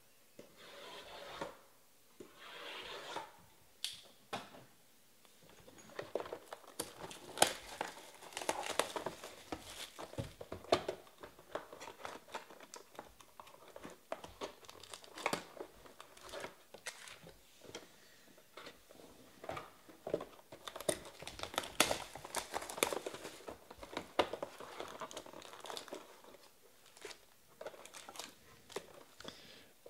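Cardboard trading-card hobby boxes being handled and one opened, then foil card packs taken out and rustled. The sound is irregular crinkling and tearing with sharp clicks, sparse at first and busier from about six seconds in.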